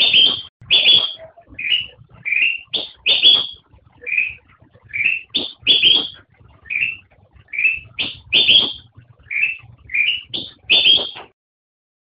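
Kutilang emas bulbul (Pycnonotus melanicterus) singing: a loud, fast run of short rising chirpy notes, repeated phrase after phrase with hardly a pause, stopping near the end.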